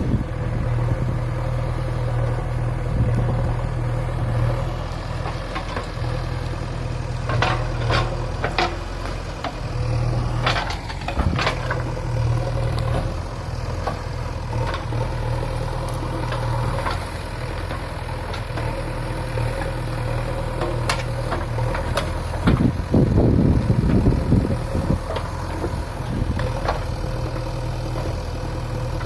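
JCB 3DX backhoe loader's diesel engine running steadily, with scattered sharp clanks in the middle and a louder, rougher stretch about three quarters of the way through.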